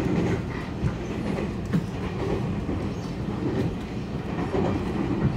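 Passenger train running along the track, heard from inside the carriage: a steady low rumble with a few sharp clicks from the wheels and rails.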